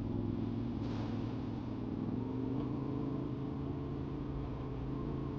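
Yamaha Ténéré 700's parallel-twin engine running at a steady speed while the bike is ridden, with a steady hiss over it.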